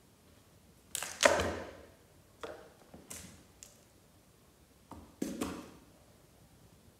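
Cat raking and scratching sand with its paws in a cardboard box: four short scraping swishes, the loudest about a second in and the last about five seconds in.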